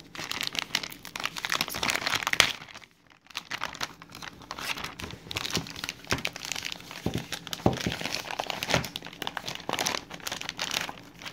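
Thin clear plastic sleeve on a new tablet crinkling and rustling as it is handled and pulled off, in quick crackly bursts with a short lull about three seconds in.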